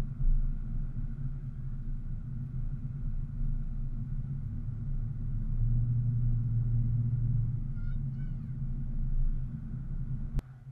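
Steady low rumble of a vehicle driving along a road, heavier for a couple of seconds midway, with a few faint short chirps near the end. It stops abruptly with a sharp click.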